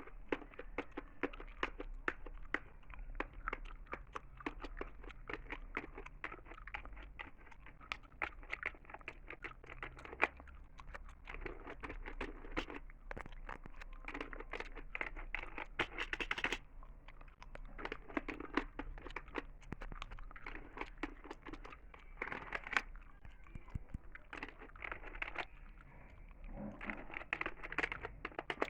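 Close-miked ASMR gum chewing, with a dense stream of small wet clicks and crackles, mixed with the clicking of a computer keyboard.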